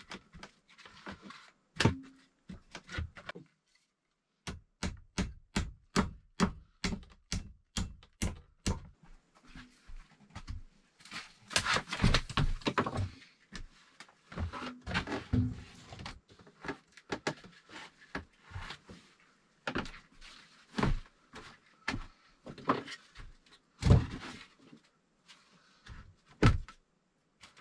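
Wooden knocks and thuds from logs being handled and fitted into a bed frame. A few seconds in comes a quick run of about a dozen evenly spaced blows, about three a second, followed by scattered knocks.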